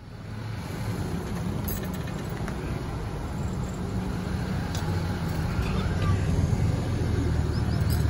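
Outdoor ambient noise: a steady low rumble with a noisy hiss over it, a few faint clicks and faint voices.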